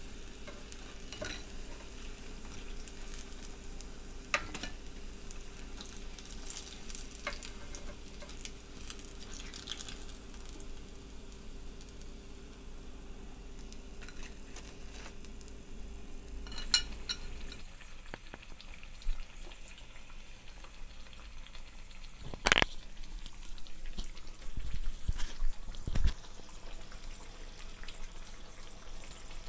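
Besan-battered potato slices deep-frying in hot oil, giving a steady sizzle. A few sharp clicks come from a fork knocking the pan as the pieces are turned.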